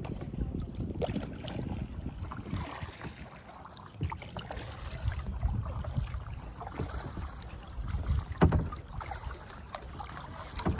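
Kayak on open water: paddle strokes splashing and dripping, with wind rumbling on the microphone. A sharper splash or knock stands out about eight seconds in.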